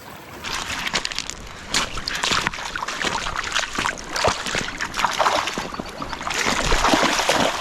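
Creek water sloshing and splashing irregularly as a Shiba Inu wades through it, the splashing busiest near the end.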